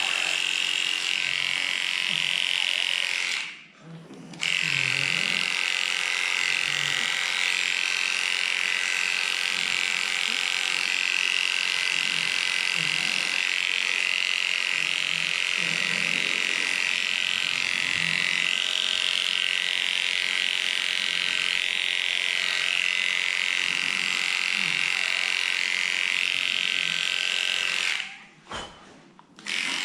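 Cordless electric dog clipper running steadily while shaving a pug's coat. It cuts out twice for about a second, a few seconds in and near the end.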